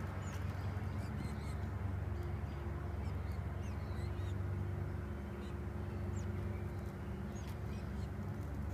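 A steady low hum throughout, with short, high chirps of small birds scattered over it.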